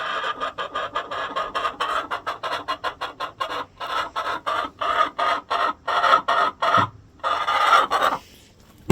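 Hen squawking in a fast, loud run of clucks, about four or five a second, ending in one longer drawn-out squawk near the end. The owner takes the fuss for anger at another hen sitting in her nest box.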